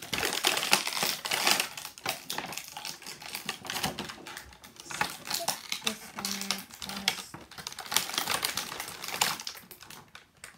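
Thin plastic wrapping and a clear plastic blister tray crinkling and clicking as they are handled, a dense run of irregular crackles.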